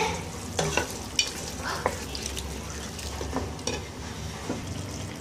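Wooden spoon stirring boiled potato cubes and gravy in a steel pot. A few short knocks and scrapes against the pot and its glass lid are heard.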